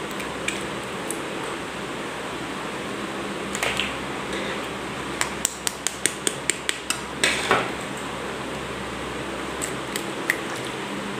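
Eggs being tapped and cracked against the rim of a plastic mixer-grinder jar: scattered sharp taps, with a quick run of about ten taps a little past halfway and a short crunch of breaking shell.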